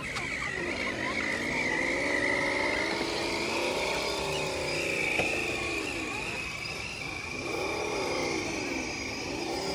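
Electric motor and geared drivetrain of a scale RC rock crawler truck whining as it climbs over rock, its pitch rising and falling repeatedly as the throttle is worked. A steady higher whine sits above it.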